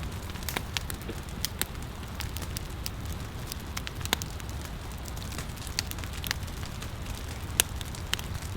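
Firewood burning, crackling with scattered sharp pops over a low steady rumble; the loudest pop comes near the end.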